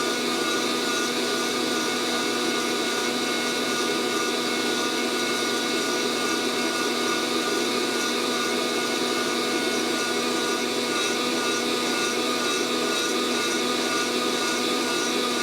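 Fresh Roast SR 800 hot-air coffee roaster running steadily mid-roast. Its fan blows heated air through the tumbling beans with an even whir and a high whine. No cracking pops are heard, as the beans have not yet reached first crack.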